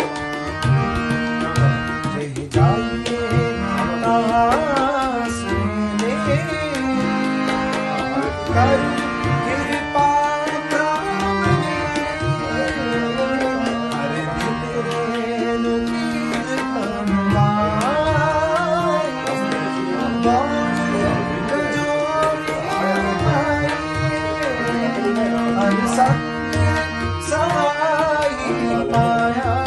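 Rina harmonium with two banks of reeds and a bass coupler playing a sustained melody, with a man singing an ornamented line over it and tabla accompanying in a steady rhythm. Some of the low drum strokes bend in pitch.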